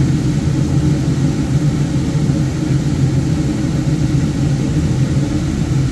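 Wood lathe motor running at a steady speed, a constant low hum.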